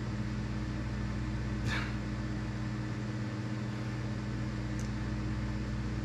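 Steady low hum of a running household appliance, with a short breath about two seconds in.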